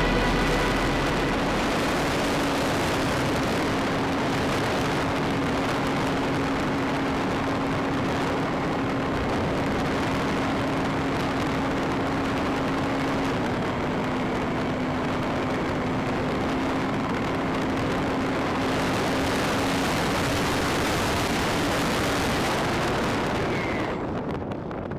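Wind rushing over an onboard camera on a foam RC motorglider in flight, with a steady motor-and-propeller hum underneath that drops a little in pitch about halfway through. The hum fades and the rush falls off near the end.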